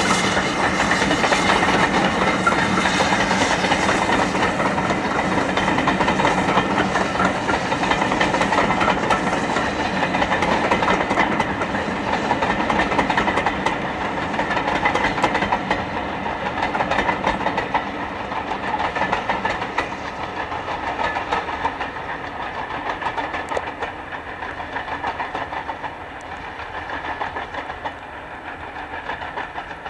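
Steam locomotive hauling a train of coaches past and away, the running sound of engine and coaches fading slowly as the train recedes.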